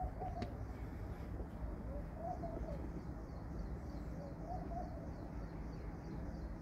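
A dove cooing: three short phrases about two seconds apart, over a steady low background noise.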